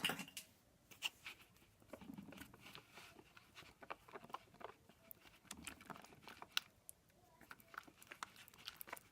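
Slime being mixed in a bowl: faint, irregular soft clicks and smacks.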